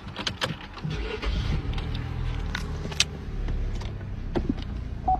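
A few sharp clicks, then an engine starts about a second in and runs steadily with a low rumble.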